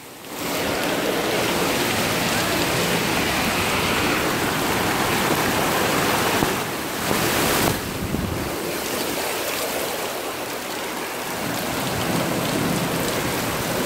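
Steady rush of muddy floodwater running through a street, with rain.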